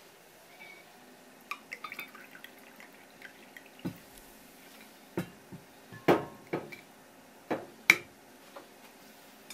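A drink poured from a bottle into a ceramic cup, splashing in several sharp, irregular bursts from about four to eight seconds in, after a few faint clicks of the bottle being handled.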